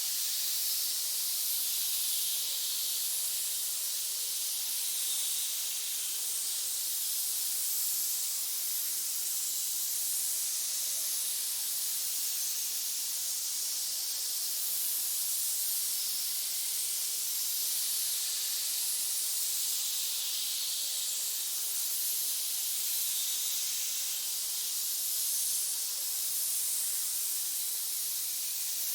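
Snake hissing: a continuous high hiss with faint slow swells and no pauses.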